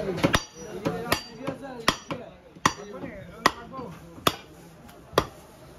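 Butcher's cleaver chopping through a beef leg cut on a wooden log block: seven sharp strikes, evenly spaced at a little under one a second.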